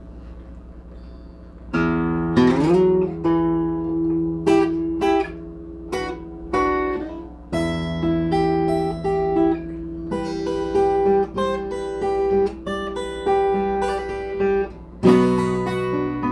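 Guitar played by hand, starting about two seconds in: plucked chords and single notes that ring on, with one note sliding up in pitch and fresh chords struck twice more. A low steady hum sits under it.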